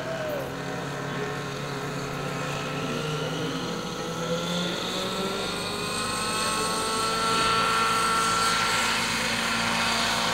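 Nitro-powered RC helicopter's glow engine and rotor spooling up, the pitch rising steadily and the sound growing louder about two-thirds of the way through, then holding at a steady high pitch as the model comes up to flying speed and lifts off.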